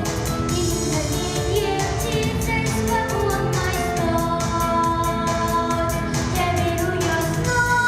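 Pop song with a steady beat, a solo voice singing the melody in long held notes over the backing track.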